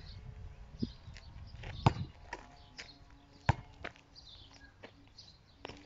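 A basketball bouncing on an asphalt court: sharp bounces, the two loudest about two and three and a half seconds in, with lighter knocks between.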